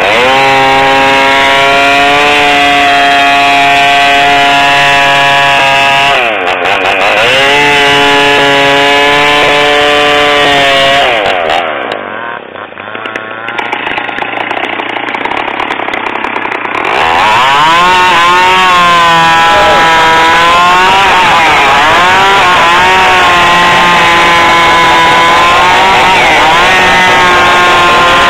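Two-stroke chainsaw ripping lengthwise along a squared log, running at high revs under load with a brief dip about six seconds in. Around the middle it drops back to a quieter idle for several seconds, then revs up again and cuts on, its pitch wavering as the chain bites into the wood.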